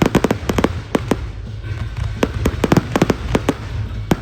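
Aerial fireworks bursting in a rapid, irregular string of sharp bangs, several a second, over a low rumble.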